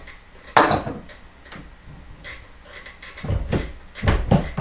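Clicks and clunks of a reloading press being handled while its resizing die is adjusted: a sharp click about half a second in, a lighter click a second later, then a run of dull, heavy knocks near the end.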